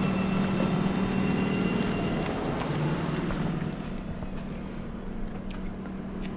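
Volkswagen ID.3's synthetic pedestrian warning sound: a steady electric hum with a few held tones above it, fading down after about four seconds.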